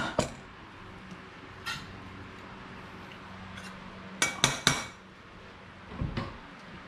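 Metal spoon clinking against ceramic dishes: a single clink, another a little later, then a quick run of three or four clinks past the middle, and a duller knock near the end.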